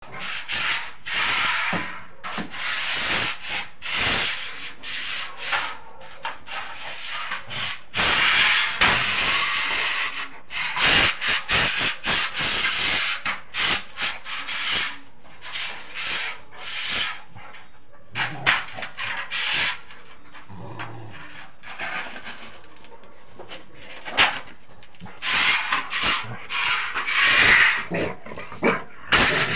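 Rottweiler scrabbling and scuffing on a tiled floor in irregular bursts as it spins round after its own tail.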